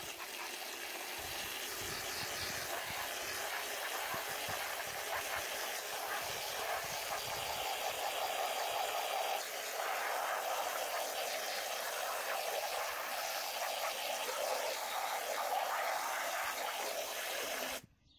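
Garden hose spray gun jetting water onto greasy wool locks in a plastic colander standing in a pan: a steady rushing hiss of spray and splashing that cuts off suddenly near the end.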